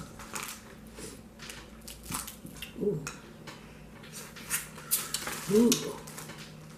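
Boiled crab legs being handled and their shells cracked and picked apart by hand: an irregular run of sharp clicks and cracks, with shell knocking against a glass bowl.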